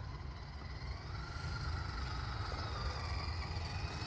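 Electric motor and gearbox of an Axial Deadbolt RC rock crawler whining faintly as it crawls slowly up a rough hill, the pitch rising a little after about a second. A steady low rumble runs underneath.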